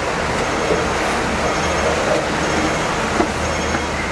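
Steady street traffic noise around a Hong Kong double-decker tram standing still, with a low steady hum underneath and a faint knock about three seconds in.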